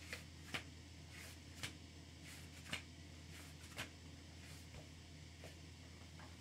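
Faint, scattered clicks and rustles of a book's pages being handled and turned, about one or two a second, over a low steady hum.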